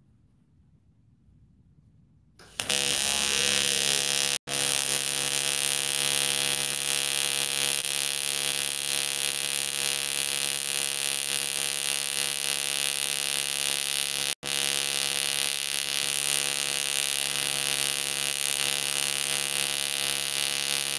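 AC TIG welding arc on aluminum pipe, from an Eastwood TIG 200, buzzing steadily with a high hiss. It strikes about two and a half seconds in and is broken twice by split-second gaps.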